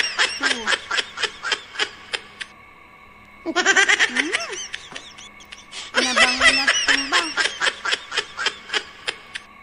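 High-pitched laughter in three bouts, each a quick run of 'ha-ha' pulses that fades away. The first ends about two seconds in, a short one comes around four seconds, and a longer one runs from about six to nine seconds.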